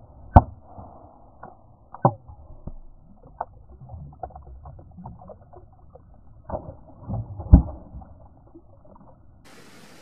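Slingshot shots striking close by: a sharp crack about a third of a second in as an apple is blown off a boulder, another hard knock at about two seconds, and a cluster of knocks near seven and a half seconds, with small clicks and ticks between. Near the end a steady rushing hiss takes over.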